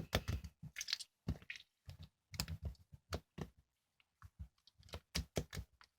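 A quick, irregular run of light clicks and taps, like fingers typing on keys.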